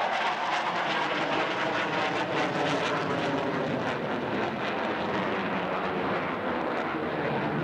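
F-15 Eagle fighter's twin jet engines at high power as it pulls up and climbs, a loud steady jet noise with a crackle running through it.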